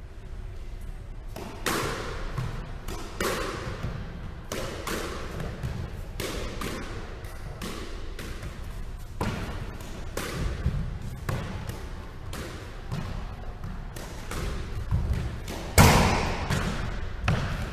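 Squash rally: a squash ball struck by rackets and smacking off the court walls and floor, roughly one sharp hit a second, each ringing in the court's echo. The loudest hit comes near the end.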